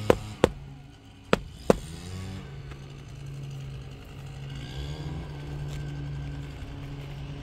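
Hammer knocking on asphalt roof shingles, four sharp strikes in the first two seconds, two close together and then two more about a second later. A steady low hum follows.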